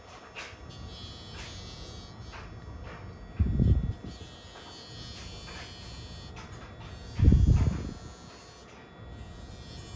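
Electric pet nail grinder running with a steady high-pitched buzz as it files a puppy's claws, dropping out briefly now and then. Two dull low thumps come about three and a half and seven seconds in.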